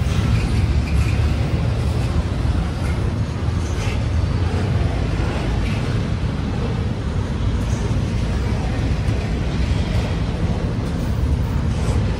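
Railroad cars rolling past with a steady low rumble, with a few faint wheel squeals in the first few seconds.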